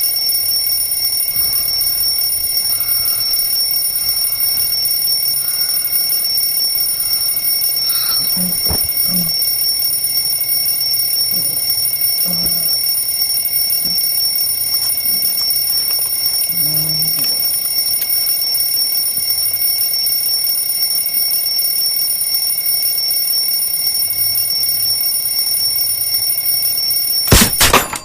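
An alarm clock ringing loudly and without a break, then stopping abruptly with a knock near the end.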